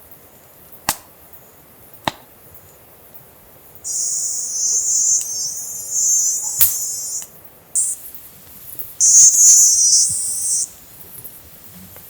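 An insect calling in a high, rapidly pulsing trill, in three bursts: one of about three seconds starting some four seconds in, a short one near eight seconds, and another of about a second and a half just after nine seconds. Sharp clicks sound about one and two seconds in, and again during the first burst.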